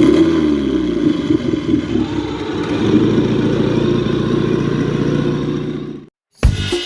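An engine running with a steady, deep rumble. It cuts off suddenly about six seconds in, and drum-led music starts right after.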